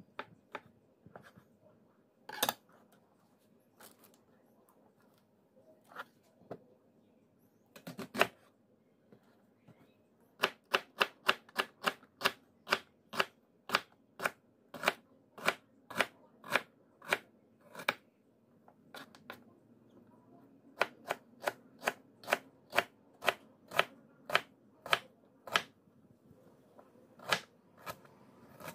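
Chef's knife slicing mushrooms and then an onion on a cutting board: a few scattered taps at first, then the blade strikes the board in steady sharp taps, about two a second, pausing briefly partway through before resuming.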